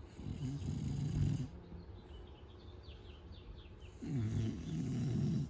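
French bulldog snoring: two long snoring breaths about four seconds apart.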